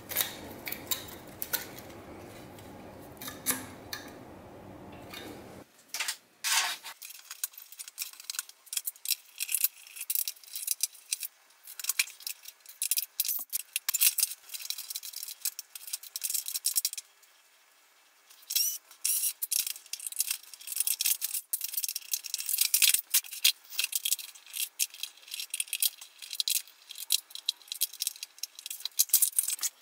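Sped-up clicking, rattling and clattering of screws, a screwdriver and plastic housing parts as an upright vacuum cleaner is taken apart, a dense run of sharp clicks with a short lull a little past the middle. Before it, for the first few seconds, a softer steady handling sound as a small vacuum motor is turned over in the hands.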